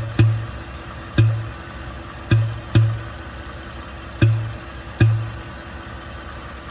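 Ford F-150 5.0 V8 idling, with about seven deep thumps at uneven intervals, several in quick pairs. The owner says it sounds like air popping or being sucked in at the intake, and a new PCV hose and valve have not cured it.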